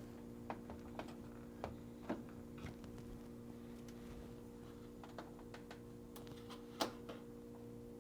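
Scattered small clicks and taps of plastic as a flat-blade screwdriver pries the locking tab of a refrigerator freezer drawer stop and the stop is pulled off. The loudest click comes near the end. A steady low hum sits underneath.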